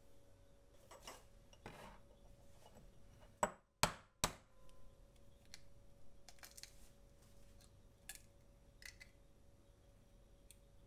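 An egg tapped sharply three times against a hard edge, then faint crackles and clicks of the shell being pulled apart.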